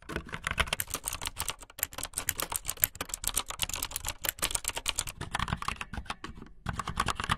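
Fast typing on a computer keyboard: a dense, uneven run of key clicks, with a brief pause near the end.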